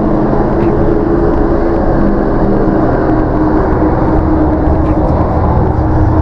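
Steady engine and road noise from a moving car, heard from inside the cabin, with a constant engine drone.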